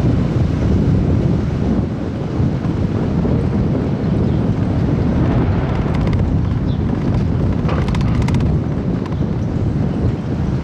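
Wind buffeting the microphone: a loud, unsteady low rumble, with a few faint ticks about eight seconds in.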